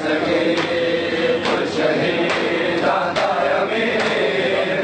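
Group of men chanting a noha in unison, sustained and slowly moving in pitch, with sharp hand slaps recurring about once a second: chest-beating (matam) keeping the beat of the lament.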